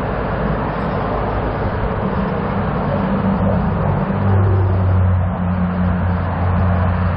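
Motorway traffic running alongside: a steady rush of tyre and road noise, with a low engine hum that grows stronger about four seconds in.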